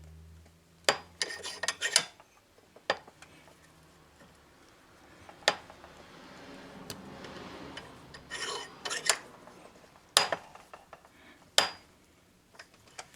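Small metal parts and tools clinking and knocking on a workbench in a series of separate sharp knocks and short clusters of clinks. A softer scraping or rubbing sound swells in the middle.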